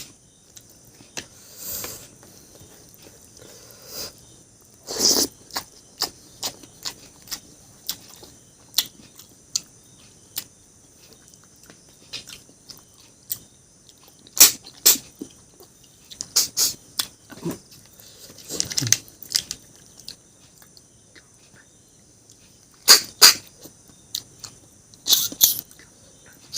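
Close-miked eating sounds: irregular sharp clicks and smacks with a few longer slurping noises, separated by short quiet gaps.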